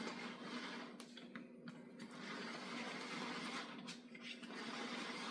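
Pancake batter being mixed in a Blackstone Stir & Pour mixer container, a steady whirring, churning noise that breaks off briefly twice, over a faint steady hum.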